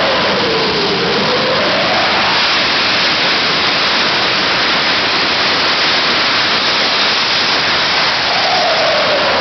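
Jet engine of a jet-powered golf cart running with a loud, steady rushing roar. A whine in it drops in pitch just after the start, rises again, and drops once more near the end as the cart moves around the arena.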